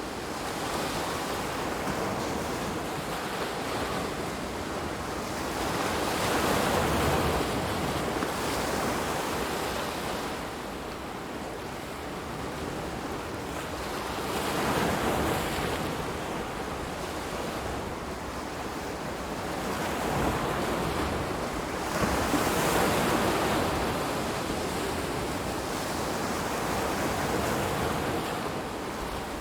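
Ocean waves washing in on a shore, the rushing noise swelling and easing about every seven to eight seconds.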